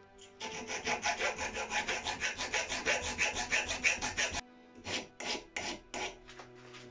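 A flat metal file scraping across the cut end of an anodized aluminium angle profile clamped in a bench vise. Quick, even strokes come about four a second for roughly four seconds, then stop; a few slower single strokes follow.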